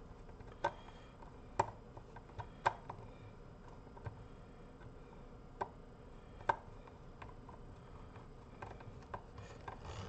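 Irregular light clicks and taps of small metal parts and tools being handled on a car amplifier's circuit board and metal chassis during reassembly, with a short cluster of clicks near the end.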